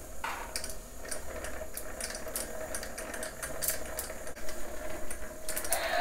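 Small motor in a Discovery Kids Tornado Lab toy running to spin a water vortex: a steady hum with scattered light clicks and ticks. It gets louder near the end.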